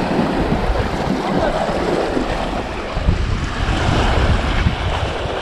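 Sea waves washing against a rocky shore, with wind rumbling on the microphone, heaviest from about three to four and a half seconds in.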